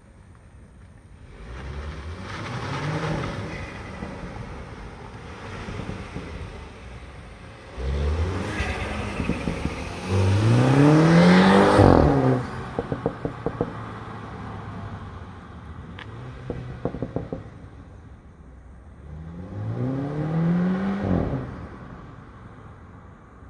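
Stock 2015 Mini Cooper S F56's 2.0-litre turbocharged four-cylinder engine revving three times, its pitch climbing each time, the middle rev longest and loudest. When the throttle closes, the stock exhaust answers with a quick run of crackling pops.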